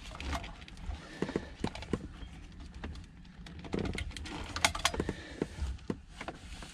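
Plastic wiring-harness plugs from a factory car radio clicking and rattling as they are handled, in scattered sharp clicks and taps, the loudest cluster a little past halfway.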